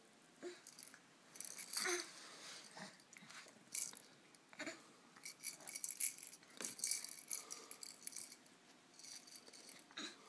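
A baby's plastic toy rattling in irregular short bursts as the infant handles and shakes it.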